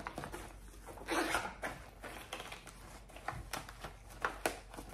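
Handling noise from a vinyl zippered cosmetics pouch being opened: soft plastic rustling with many small clicks and ticks, and a brief scraping rustle about a second in.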